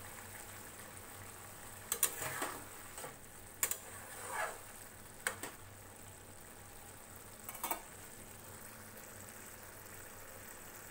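Paneer bhurji gravy simmering and bubbling in a kadhai on a gas flame, a steady low hiss and hum, with about four sharp clicks and small pops scattered through the first eight seconds.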